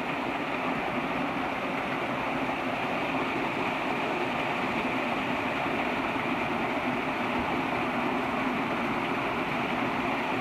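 Steady rush of water pouring down a shallow dam spillway below a small waterfall, splashing around people lying in the flow.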